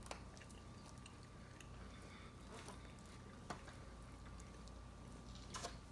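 A few faint clicks of a metal fork against the dish as baked macaroni is scooped up, over a faint steady high hum.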